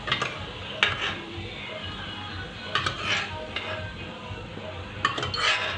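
Metal spoon scraping and clinking against an aluminium pressure cooker several times as fried potato pieces are scooped out of the oil, with a light sizzle of hot oil underneath.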